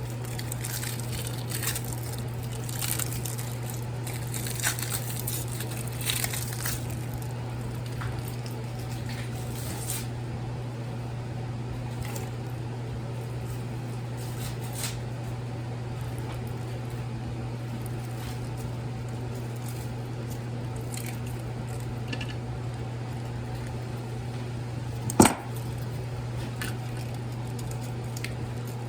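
Copper winding wire and plastic insulation being pulled out of a transformer by hand: scattered small crackles and clicks over the first ten seconds, then one sharp snap about 25 seconds in. A steady low hum runs underneath.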